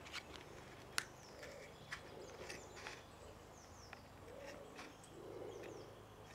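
Scissors cutting along a groove of a ridged plastic Brompton saddle height insert, making sharp snips about once a second, the loudest about a second in. Birds chirp faintly in the background.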